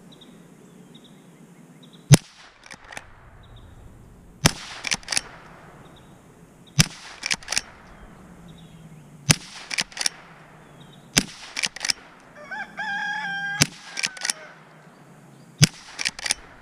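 Henry lever-action .22 Long Rifle rifle fired seven times, about every two seconds, with the lever worked between shots in a couple of quick metallic clicks. A rooster crows once in the background about three quarters of the way through.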